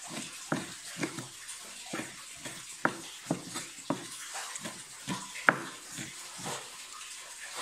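Cleaver chopping raw beef on a wooden cutting board: short sharp chops about two a second, with one harder chop about five and a half seconds in.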